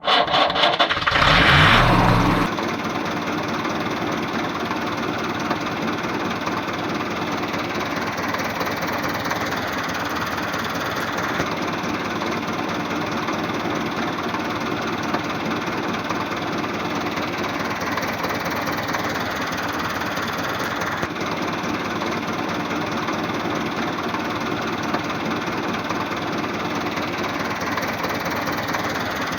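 Steady engine idling sound of a miniature road roller, a low, even chugging that holds level throughout. It is louder and rougher for the first two seconds or so, then settles.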